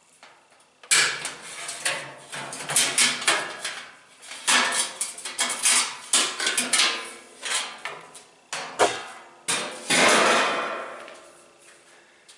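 Metal parts of a washing machine knocking and clanking as it is taken apart: a quick series of sharp impacts over several seconds, the last one, about ten seconds in, ringing out for about a second.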